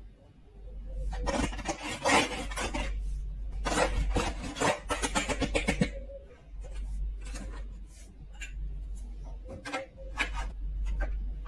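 Hard plastic pieces of a Schleich toy horse stable rubbing, scraping and clicking against each other as the roof panel and a wall section are handled and fitted. Two busy stretches of scraping and clicking in the first half, then lighter, scattered clicks.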